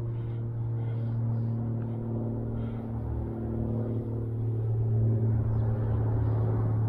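A steady low mechanical hum, like an engine running, with fainter tones above it that come and go.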